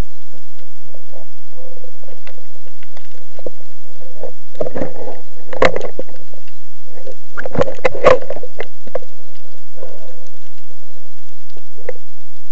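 Underwater sound through a camera housing: a steady, muffled water noise, with two louder stretches of rushing, bubbling water about five and eight seconds in.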